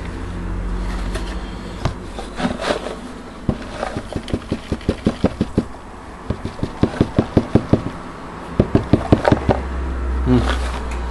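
Cardboard box of powdered detergent being shaken and tapped to pour the powder into a washing machine's dispenser drawer: runs of quick, sharp knocks, about four to five a second, with short breaks between runs.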